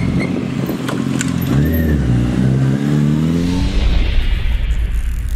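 Vehicle engine running steadily, its pitch dipping and swinging back up about a second and a half in, then rising steadily as it revs. It gives way to a low rumble with a rising whoosh near the end.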